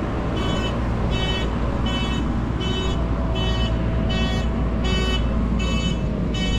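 A short, high, buzzy beep repeating evenly, about three every two seconds, over a steady low rumble.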